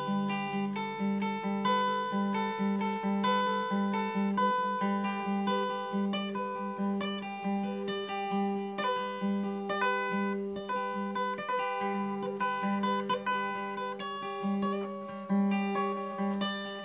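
Solo steel-string acoustic guitar fingerpicked in a free improvisation: a low note plucked over and over under a wandering melody of single plucked notes, several a second.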